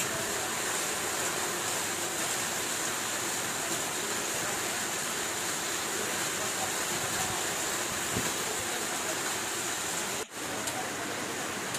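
Heavy rain falling: a steady, even hiss with no pitch to it, briefly cut off about ten seconds in.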